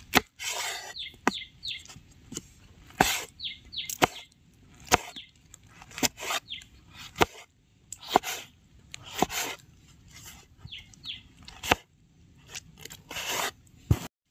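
A kitchen knife chopping vegetables on a wooden cutting board: sharp knocks roughly once a second, with short slicing sounds between them. Small birds chirp in short runs a few times.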